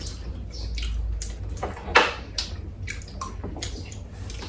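Wet chewing and lip-smacking of people eating aloo paratha by hand, a string of short clicks with one louder smack about two seconds in.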